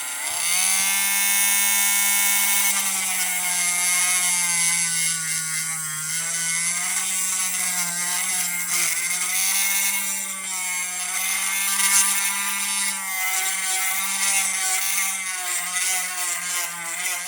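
Dremel rotary tool with a sandpaper grinding bit running at high speed, a steady whine whose pitch sags and wavers as the bit is pressed into the plastic head, grinding its peg hole wider. It spins up at the start and begins winding down at the very end.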